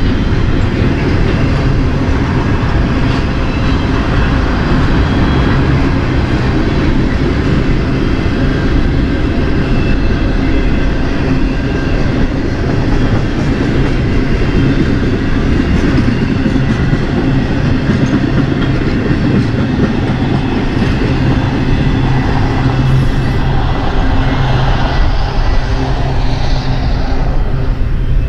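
Intermodal freight train's cars, loaded with highway trailers and containers, rolling past at a grade crossing, their steel wheels running on the rails in a loud, steady noise.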